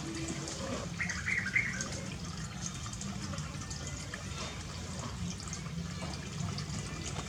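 Water running and splashing steadily, as from a tap during a bath. About a second in there is a brief higher-pitched sound over it.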